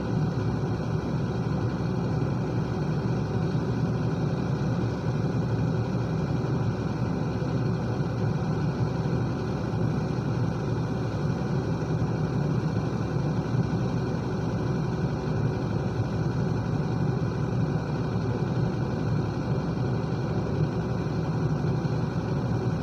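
Excavator's heavy diesel engine running steadily, an even low rumble with no revving or breaks.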